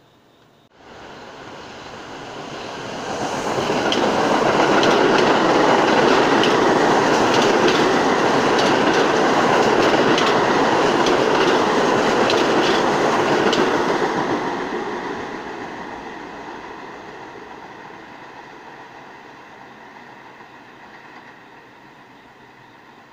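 New York City subway train passing through at speed without stopping: a rumble that builds over a few seconds, rapid wheel clicks over the rail joints for about ten seconds, then a long fade as it moves away.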